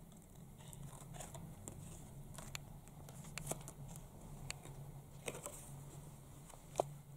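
Faint rustling and crinkling of paper and tape as a handmade paper sticker is unwrapped and peeled, with scattered small clicks over a low background hum.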